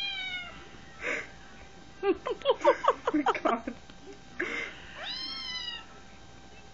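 Cat meows played from a smartphone cat app while a cat paws and chews at the screen. A long meow rises and falls at the start, a fast string of short meow notes comes about two to three and a half seconds in, and another long meow follows near five seconds, with brief hissy noises between.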